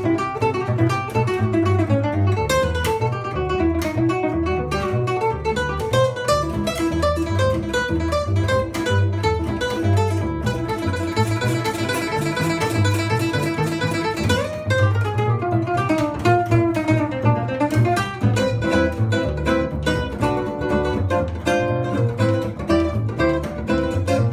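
Nylon-string acoustic guitar fingerpicking quick melodic lines over a steady run of plucked notes on an upright double bass, the two playing a tune together.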